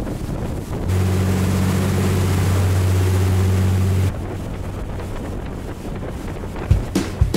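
Motorboat running at speed: wind rushing over the microphone and water hissing off the hull. A loud, steady engine drone comes in about a second in and drops away about four seconds in. Near the end, drum beats of background music begin.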